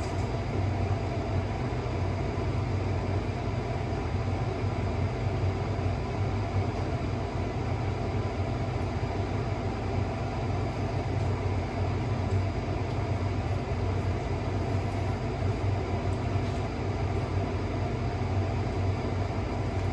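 A steady, unchanging low mechanical hum with a few faint steady tones above it and no distinct events.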